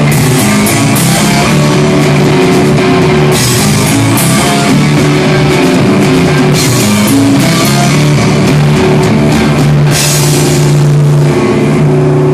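Rock band playing loudly: electric guitar over a drum kit, with cymbal crashes every few seconds.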